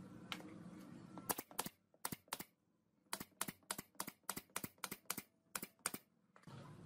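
Brad nailer firing about fifteen sharp shots in quick succession, driving nails through a wooden slat into the slats beneath it. The shots begin about a second in, come about four a second in the middle stretch, and stop about six seconds in.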